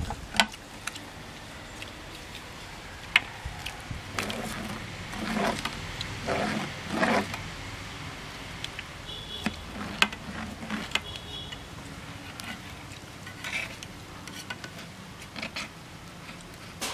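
Scattered sharp clicks and light scraping on a steel plate as a plastic pizza-cutter wheel and fingers break up a large egg omelette. The sharpest click comes about three seconds in, and there is a denser stretch of handling noise midway.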